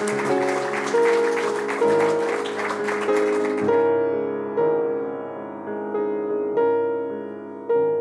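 Slow solo piano music, single notes and chords struck about once a second. Audience applause runs over the first half and cuts off abruptly just before the middle, leaving the piano alone.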